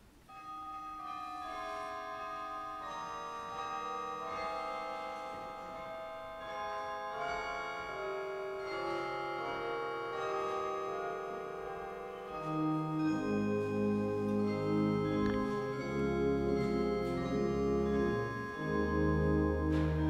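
Organ playing slow, sustained chords, soft at first; about two-thirds of the way through, deep bass notes come in and it grows louder.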